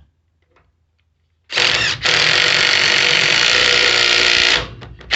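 Ryobi 18-volt 1/2-inch cordless impact wrench hammering on a truck's lug nut. It starts about a second and a half in, stops for a moment, then runs steadily for about three seconds and trails off, with another short burst near the end.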